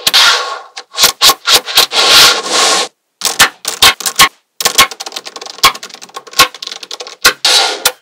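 Small magnetic balls clicking and rattling as they snap together and are pressed and slid into rows and sheets: rapid sharp clicks and short rattling runs, broken by two brief silences a few seconds in.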